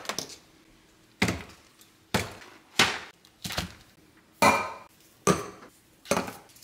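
Grocery items set down one after another on a kitchen counter: about seven separate knocks of cans, a glass jar and packages, roughly one every three-quarters of a second, some with a short clinking ring.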